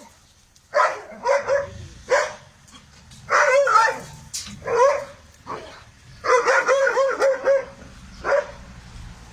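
A dog barking in short bursts, with a quick run of barks about two-thirds of the way in.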